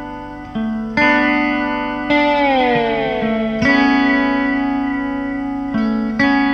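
Instrumental music: an electric guitar played through effects, with chords struck every one to two seconds and left to ring. Around the middle, the notes slide slowly down in pitch.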